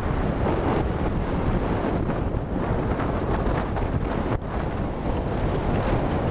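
Heavy wind rushing over the microphone of a slow-moving follow car, with road noise underneath; it briefly drops out about four seconds in.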